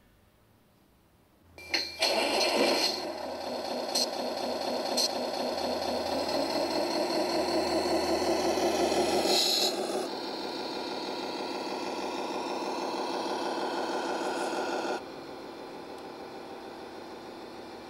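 Tamiya 1/14 Knight Hauler RC truck's electronic V8 engine sound starting up suddenly about two seconds in, then running with a few sharp clicks. The pitch climbs for a few seconds, drops back about ten seconds in, and the sound gets quieter near the end.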